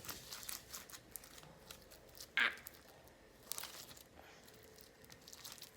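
Freshly made homemade slime being squeezed and pulled in the hands, giving many small sticky crackles and clicks, with one louder short pop about two and a half seconds in.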